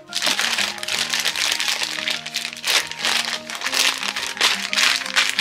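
Plastic zip-top bags crinkling loudly in rapid uneven bursts as hands squeeze and press the air out of them, over soft background music.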